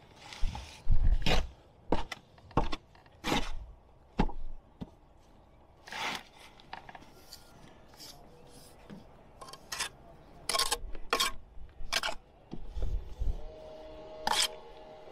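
Short, irregular scraping strokes of a steel jointing tool run along fresh mortar joints in brickwork, with a few low knocks.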